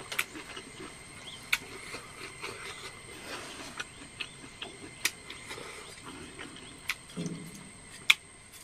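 Eating sounds from a man having instant noodles and rice: chewing, with scattered sharp clicks at irregular intervals, the loudest near the end.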